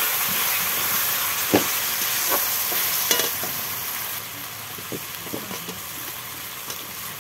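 Spiced onions sizzling hard in a hot kadai over a wood fire, with a flat spatula stirring and knocking against the pan a few times. The sizzle eases off about four seconds in.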